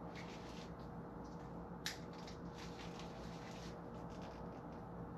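Faint handling of thin electrical wires with a hand wire stripper, with one sharp snip about two seconds in, as wire ends are prepared for splicing a two-wire IAC valve plug into the harness. A faint steady hum lies underneath.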